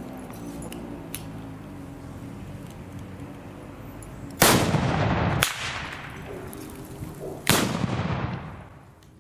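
Two loud shots from a marksmen's club's ceremonial salute cannons, about three seconds apart. Each is a sudden bang with a long echoing tail that fades over a second or more, with a short sharp crack between them.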